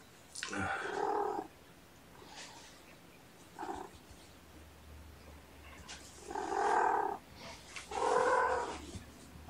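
A cat meowing in drawn-out yowls, three loud calls of about a second each with a short fainter one between them.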